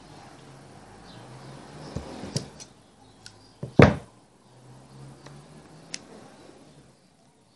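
Handling noise from hand-stitching smocking on a cushion cover: cloth rustling, a few sharp clicks, and one loud knock just before four seconds in. A low hum comes and goes underneath.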